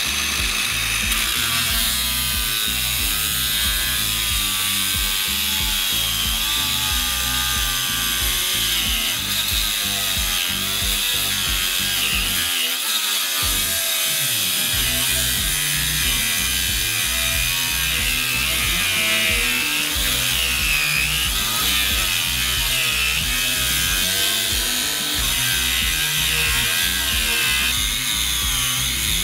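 DEKO DKAG20-125 cordless angle grinder cutting through a 40 mm steel angle with an abrasive cut-off disc. The motor whine wavers up and down as the disc bites. The grinder is audibly straining under the load.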